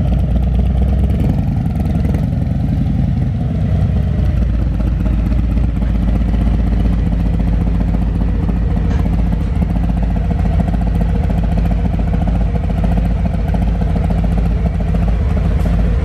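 Harley-Davidson touring bike's Milwaukee-Eight 117 V-twin running at low speed and idling through a D&D 2-into-1 exhaust, loud and steady.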